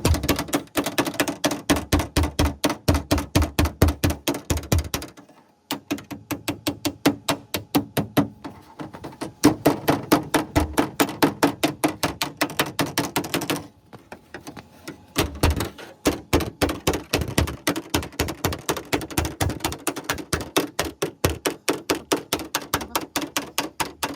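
Fast, even hammer blows on sheet metal, about five a second, in long runs that pause briefly twice: hand hammering of rusty body panels.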